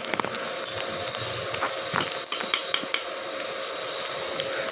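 Stick-welding arc from a small Ryu 120 A welding machine, crackling and sputtering irregularly as the electrode burns on thin steel, over a steady hiss with a faint steady tone underneath.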